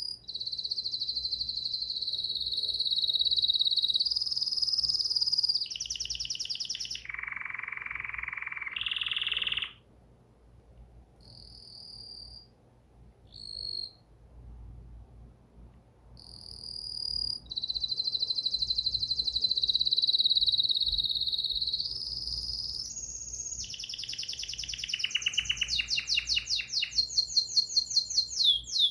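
A songbird singing long, rapid, high-pitched trills and rolls, each held for a few seconds and switching pitch. There is a quieter gap with short phrases midway, and the song ends in a fast run of repeated notes.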